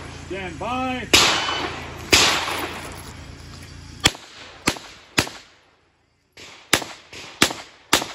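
Handgun shots on an outdoor range, the S&W 325 .45 ACP revolver: two shots with long echoing tails about a second apart, then six sharp shots in two quick strings of three, about half a second apart.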